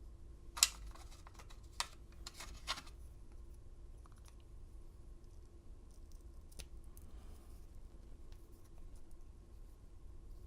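Sharp clicks and light scrapes of small metal tools against a padlock's parts as it is being disassembled: one loud click about half a second in, another near two seconds, a short cluster just before three seconds, then only faint ticks.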